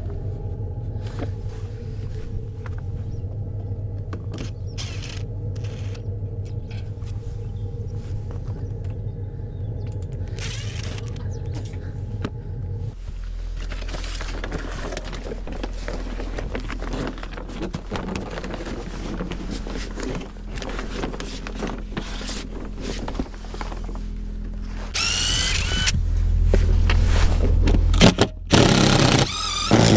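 Background music; near the end a cordless drill whirs in short rising and falling runs.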